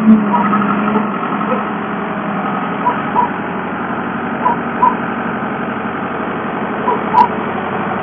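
Mini skid steer loader's engine running steadily, with short sharp knocks in pairs every couple of seconds.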